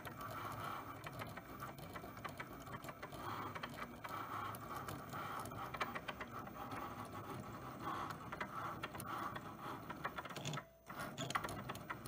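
Cricut cutting machine drawing with an Infusible Ink marker: its motors whir in short, shifting runs as the pen carriage moves, with light clicks. It stops for a moment near the end and starts again.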